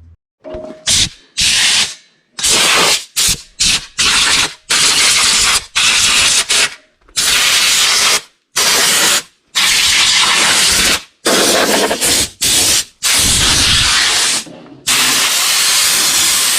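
Compressed-air blow gun blasting water off a freshly washed RV frame: a long run of loud hissing blasts, some short and some a second or two long, each starting and stopping sharply as the trigger is squeezed and released.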